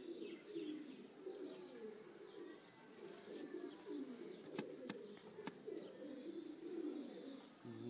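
Domestic pigeons cooing faintly and repeatedly, with a few light clicks about halfway through.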